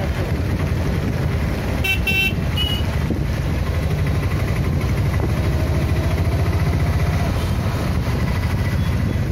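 Road traffic heard from a moving vehicle: a steady rumble of engines and tyres, with a vehicle horn honking briefly about two seconds in and a short toot right after.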